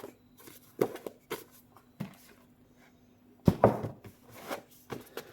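Books and packaging being handled: a few short soft knocks and rustles, the loudest about three and a half seconds in.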